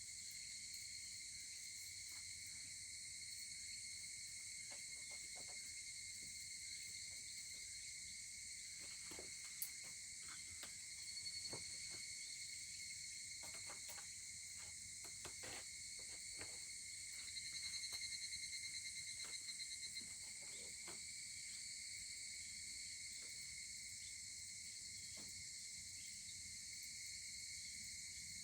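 Steady chorus of evening insects, with a higurashi cicada (Tanna japonensis) giving a pulsed call that swells and then fades about two-thirds of the way in, and a shorter call earlier. Scattered soft crackles of a wood fire fall in the middle.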